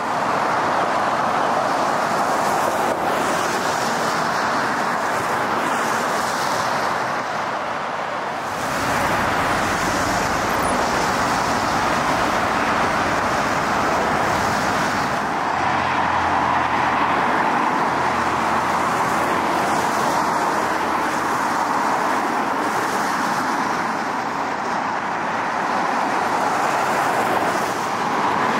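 Steady freeway traffic noise: cars and semi-trucks passing on wet pavement, a continuous tyre hiss with a deeper rumble that grows and fades.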